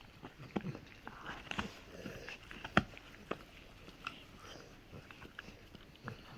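Rottweiler gnawing on a dried cow hoof chew, its teeth scraping and cracking against the hard hoof in irregular sharp clicks, one loud crack about three seconds in.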